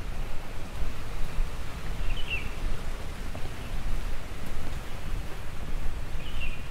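Outdoor ambience: a low, unsteady rumbling noise, with a small bird chirping briefly about two seconds in and again near the end.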